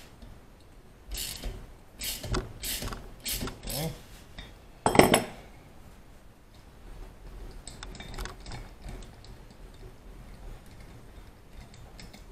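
Hand ratchet set to reverse, clicking in short runs as it backs out an old spark plug. A single louder knock about five seconds in, then fainter ratcheting.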